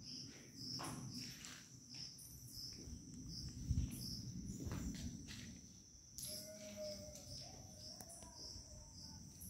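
Cricket chirping steadily, a high, faint pulse about twice a second, with a soft knock about four seconds in.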